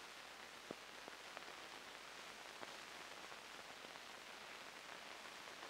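Near silence: the steady hiss of an old film soundtrack, with a few faint clicks.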